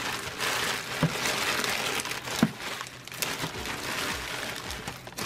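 Plastic courier pouch and bubble wrap crinkling and rustling as they are handled and pulled off a boxed digital multimeter, with a few sharper crackles.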